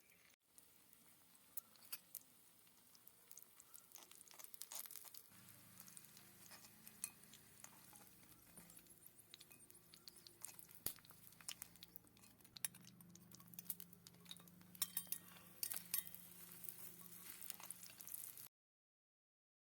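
Faint, scattered clinks and taps of small utensils against miniature dishes and pots, with a low steady hum coming in about five seconds in. The sound cuts off abruptly to silence near the end.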